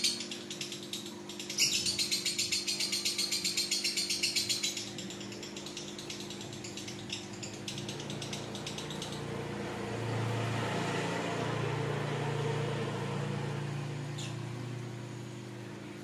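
Caged lovebird chattering in a long rapid trill, about seven or eight shrill chirps a second. This is the 'ngekek' that songbird keepers prize. The trill breaks off about five seconds in and gives way to weaker, scattered chirps. A low rumble follows in the second half.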